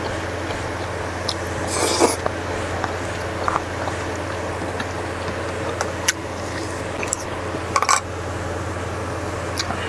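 Close-up mukbang eating sounds: a man chewing and slurping spicy cold noodle soup (jjamppong with ice). There are louder wet slurps about two seconds in and just before eight seconds, and a few small clicks of the wooden spoon, over a steady low hum.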